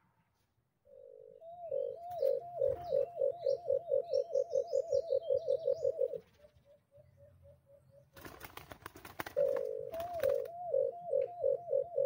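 White-eared brown dove calling: a long series of short rising hoots, about five a second, that pauses about six seconds in and starts again near the end. Faint chirps of a small bird sit above it, and a burst of crackling noise falls between the two runs.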